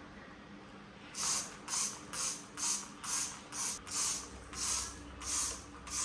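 A trigger spray bottle of cleaner being sprayed over and over, about two quick hissing sprays a second, starting about a second in.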